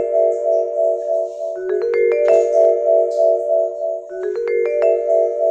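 Background music: quick rising runs of bell-like mallet notes, repeating about every two and a half seconds over held low chords.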